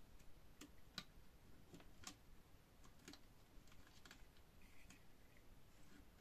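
Near silence with faint, light clicks, several of them about a second apart.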